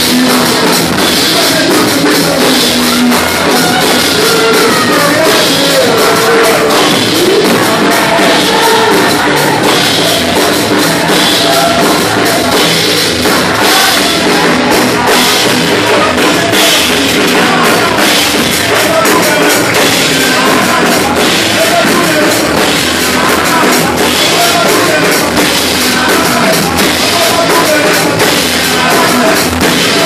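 Loud live gospel worship music with a drum kit, a congregation singing along.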